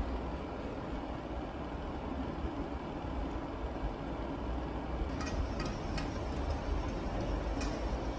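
Steady low background rumble, with about five light taps of a chef's knife on a plastic cutting board between about five and seven and a half seconds in, as a tomato is cut into wedges.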